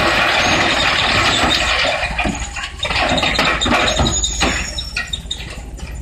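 Industrial drum wood chipper running under load: a steady low rumble under dense grinding noise. About two seconds in, the noise breaks up into irregular cracks and crunches as wood is chipped.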